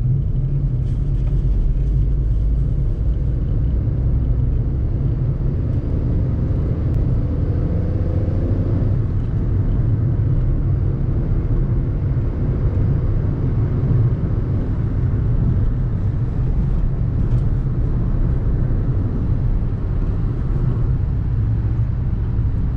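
Volkswagen Fox with its 1.2-litre three-cylinder petrol engine under way, a steady low rumble of engine and road noise, with the engine note climbing briefly about seven seconds in.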